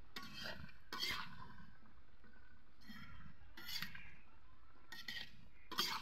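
Metal spatula scraping and clinking against a metal wok as taro stolons are turned over in it, six or seven short strokes spread through.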